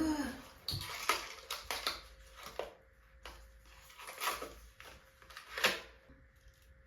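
Irregular clicks and crinkles of hands handling small plastic packaging and press-on nails, a dozen or so sharp taps spread unevenly with short pauses between.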